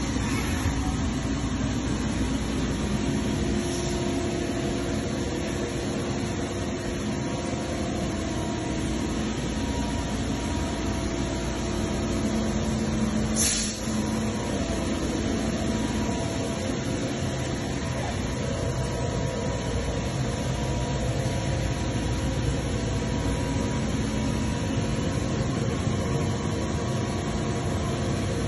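Steady machinery hum with a constant hiss, and one short sharp click about halfway through.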